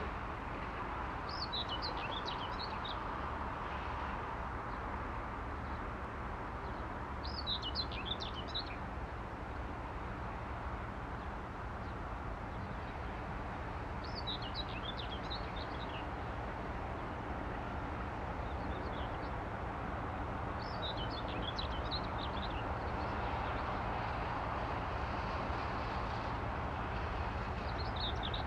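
A songbird singing short twittering phrases about every six seconds over a steady low rumble that grows slightly louder toward the end, from a GE C36-7i diesel locomotive hauling a freight train in the distance.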